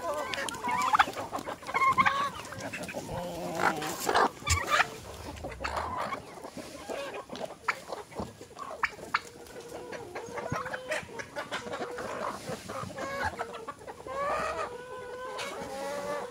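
A flock of chickens and roosters clucking and calling as they crowd around feed, with a few sharp knocks in the first half and a longer held call near the end.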